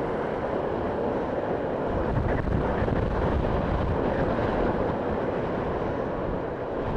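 Steady wind rush and road noise on the camera of a motorcycle riding at road speed.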